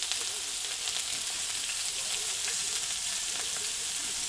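Slices of pork belly sizzling steadily on a grill pan over a gas camp stove, with a few faint light clicks.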